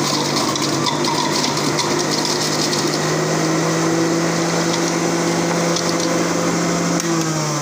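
Electric juicer's motor running steadily as fruit is juiced; about seven seconds in it is switched off and starts to wind down, its hum falling in pitch.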